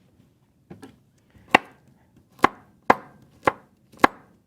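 Knife chopping raw broccoli: a couple of light taps, then five sharp chops about half a second apart.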